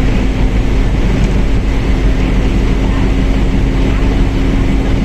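Mercedes-Benz OF1721L bus running at a steady speed: a constant diesel rumble with a steady whine held at one pitch over it.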